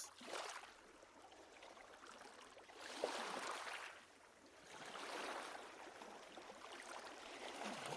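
Faint rushing noise like running water, swelling and fading in slow waves about every two seconds.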